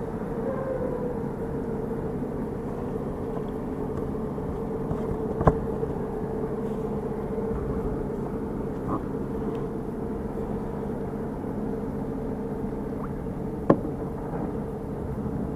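Steady motor drone with a constant pitch, broken by two sharp clicks, one about five seconds in and one near the end.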